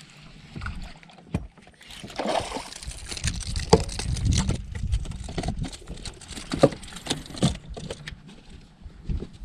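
Scattered knocks and clicks on a fishing boat, over a low rumble of wind and water.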